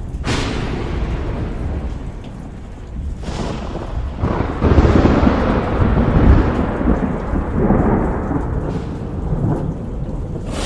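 Thunderstorm with steady rain. Sharp thunderclaps at the very start and about three seconds in each fade away, then a long, low rolling rumble of thunder swells and carries on through the second half.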